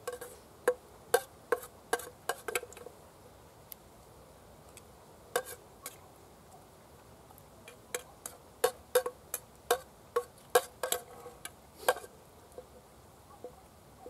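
Irregular sharp clicks and light knocks, each with a short ringing note, coming in two bunches with a lull between them.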